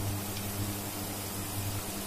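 Onion and tomato mixture sizzling gently in a frying pan, a steady hiss over a constant low electrical hum.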